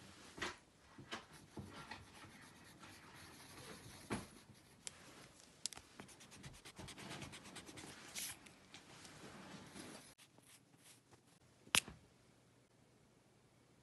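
Pencil scratching and rubbing on paper in short, quick strokes as a face sketch is drawn and shaded, with a few taps among them. The strokes stop about ten seconds in, and one sharp click comes near the end.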